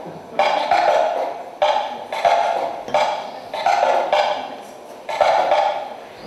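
A series of about seven sharp knocks or strikes at an uneven pace, roughly one a second, each ringing briefly and fading before the next.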